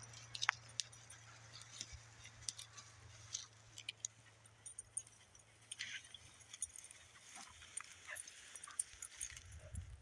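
Faint rustling and scattered small clicks of two leashed dogs nosing and stepping through dry grass.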